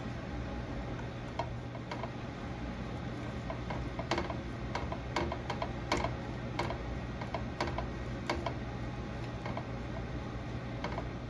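Minced garlic being stirred in melted butter in a nonstick frying pan with a silicone spatula: irregular light clicks and crackles, thickest in the middle, over a steady low hum.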